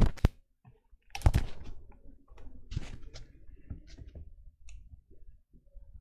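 A few sharp clicks and knocks: two close together at the start, a louder cluster about a second in, then fainter scattered ticks.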